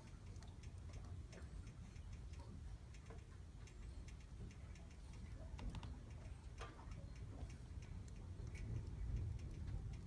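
Wood fire burning in a fireplace, the log giving off faint, irregular crackles and pops over a low steady rumble.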